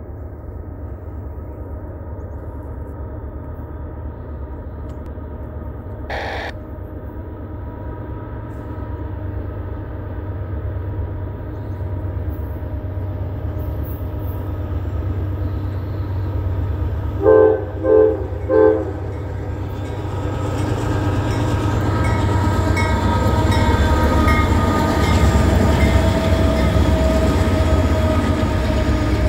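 Two Norfolk Southern GE AC44C6M diesel locomotives approaching and passing, their engines' rumble growing louder as they come close. About two-thirds of the way through, the horn gives three short blasts, the loudest sounds here.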